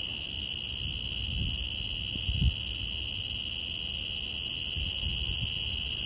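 Cicada calling in a noisy, steady, high-pitched buzz that holds without a break. A low rumble runs beneath it, with a soft bump about two and a half seconds in.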